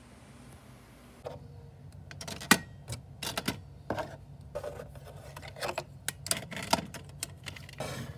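Irregular taps and clicks of small objects being handled on a wooden desk, starting about a second in, a few of them sharper and louder than the rest.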